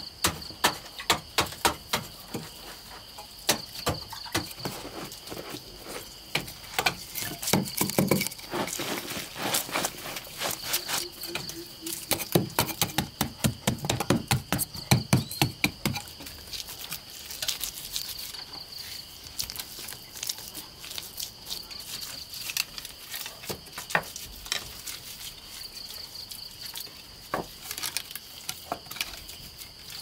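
Repeated sharp knocks of a hand tool chopping into a packed earth floor, about two a second, thinning out after about halfway. A steady high insect trill runs underneath.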